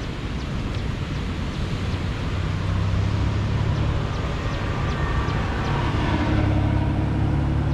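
Fishing drone's propellers humming steadily in flight, growing louder about two and a half seconds in, over a noisy hiss.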